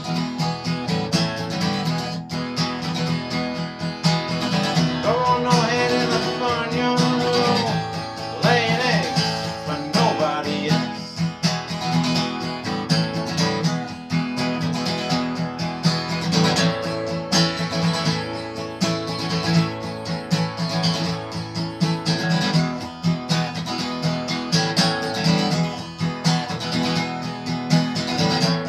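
Acoustic guitar playing an instrumental break in a slow blues, strummed in a steady rhythm.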